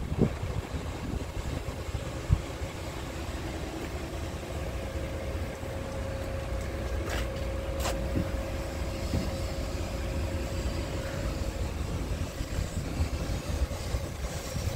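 Scania R tractor unit's diesel engine idling with a steady low rumble; two short clicks sound about seven and eight seconds in.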